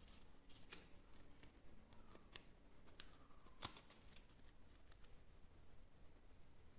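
Paper cutouts being handled and pressed into place, with scattered light clicks and rustles; the sharpest click comes about three and a half seconds in.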